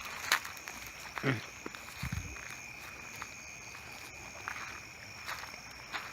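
A steady, high-pitched drone of night insects, with scattered footsteps and a couple of low thumps as people walk.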